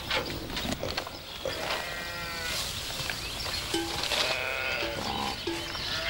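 A flock of sheep bleating, many overlapping calls at different pitches, with a few short knocks in the first couple of seconds.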